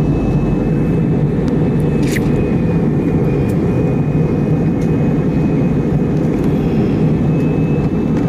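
Steady roar of an airliner's engines and airflow heard inside the passenger cabin. A faint high steady tone comes in about two seconds in, just after a brief click.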